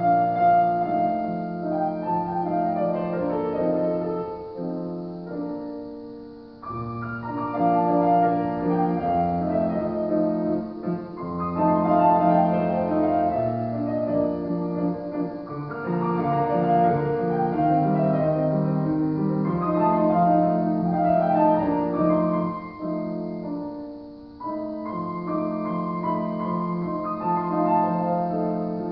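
Grand piano played solo, a classical piece in flowing phrases, with two brief softer breaks between phrases, about a quarter of the way in and again about four-fifths through.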